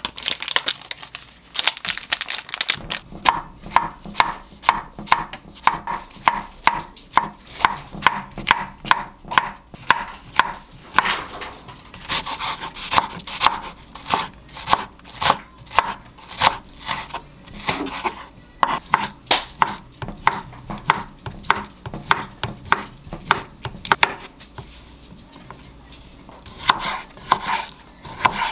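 Kitchen knife chopping onion, mushrooms and sausage on a wooden cutting board: a long run of quick, regular knife strikes against the board, pausing briefly a few seconds before the end, then a few more cuts as cherry tomatoes are halved.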